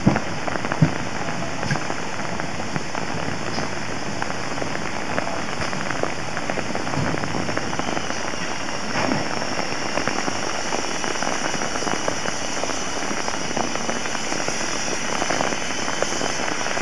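Heavy rain falling, with many close drops making a dense, fine crackle. A faint, thin high tone comes in about halfway through.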